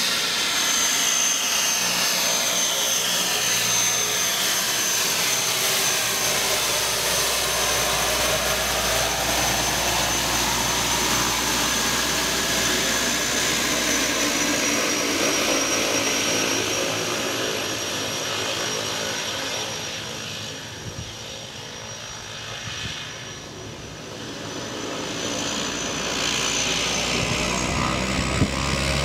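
De Havilland Canada DHC-2 Mk.III Turbo Beaver's Pratt & Whitney Canada PT6A turboprop running at taxi power: a steady high-pitched turbine whine over the propeller noise. It fades somewhat past the middle as the plane taxis away, then grows louder again near the end.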